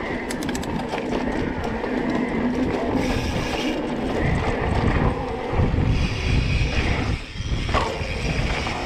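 Wind buffeting the bike-mounted camera's microphone over the rumble of tyres rolling along a sandy dirt trail at speed, with a few sharp clicks in the first second.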